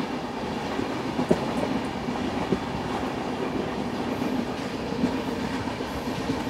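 Indian Railways train running along the track, heard from inside a coach at an open window: a steady rumble of wheels on rail, with a few sharp clacks over rail joints.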